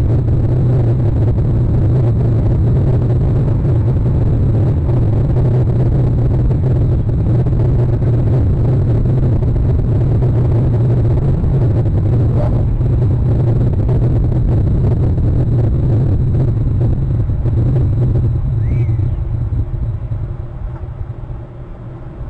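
Steady low rumble of wind on an outdoor camera microphone, easing off near the end, with a faint short high call shortly before it eases.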